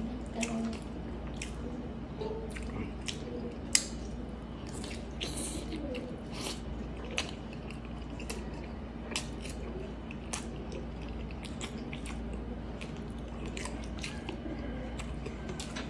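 Close-miked eating sounds: chewing soft braised pork and rice, with wet mouth smacks and scattered sharp clicks, one louder click a little under four seconds in, over a low steady hum.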